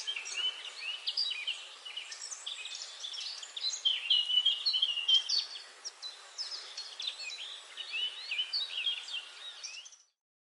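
Many small birds chirping and twittering in quick overlapping calls over a faint hiss, cutting off suddenly near the end.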